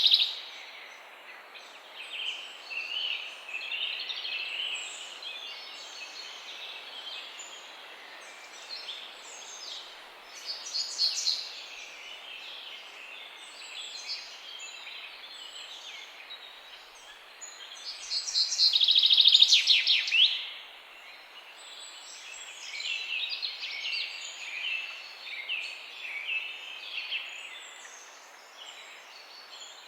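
Several songbirds chirping and singing over a steady background hiss, with a loud, fast trill about two-thirds of the way through.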